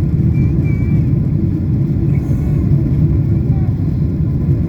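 Steady, loud low rumble of a jet airliner's cabin noise as the aircraft is under way.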